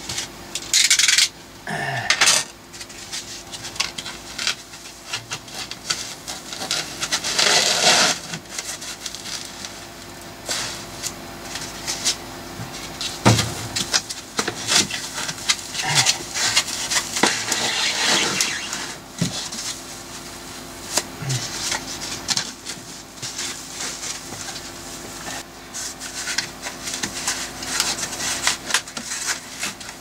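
Foam blocks being rubbed, squeezed and pushed by hand into the gaps between plastic-cased batteries, with irregular scraping and rubbing and scattered knocks and clicks against the cases and metal hold-down bars. A faint steady hum runs underneath.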